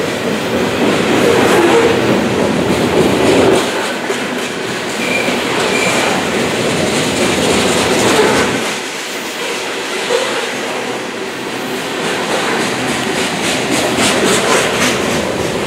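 Covered hopper cars of a Union Pacific grain train rolling past below, a steady rumble of steel wheels on rail with repeated clicking as the wheels cross rail joints.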